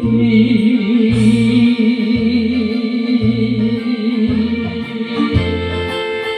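A man holding one long sung note with vibrato over a karaoke backing track of bass, guitar and keyboard with a steady beat. The voice stops about five seconds in and the backing plays on alone.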